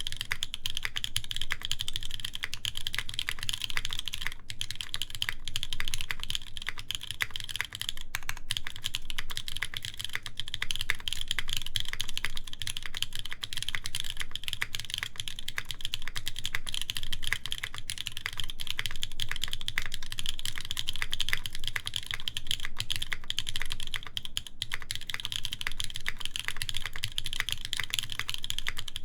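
Continuous fast typing on a SINGAKBD Kohaku mechanical keyboard with lubed, broken-in Kailh Cream switches, aluminum plate and GMK keycaps: a steady stream of keystrokes with no pauses.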